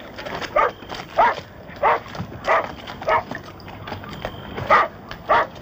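A dog barking over and over in short, even barks, about one every two-thirds of a second.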